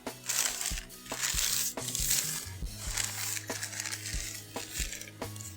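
Background music with a steady beat: a held bass line under regular sharp percussion strokes.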